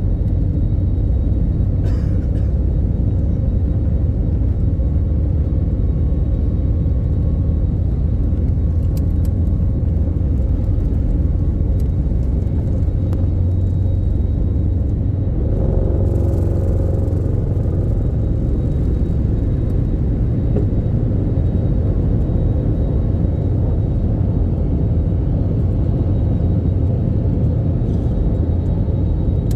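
Airbus A321neo airliner's jet engines and airflow heard from inside the cabin during takeoff: a loud, steady, deep rumble.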